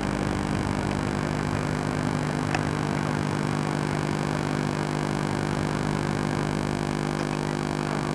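A steady low hum of several even tones over a constant hiss, with no events.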